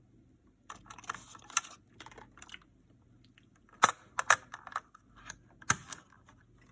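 Irregular sharp clicks and short rattles of computer hardware being handled and fitted, with the three loudest clicks in the second half.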